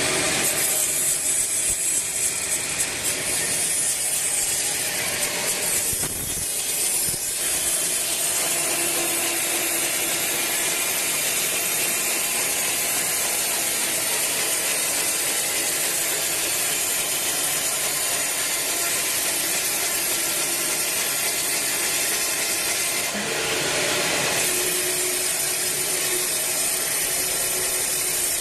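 Band sawmill running, its blade cutting through a teak log with a steady, dense noise that changes briefly about six seconds in and again near 23 seconds.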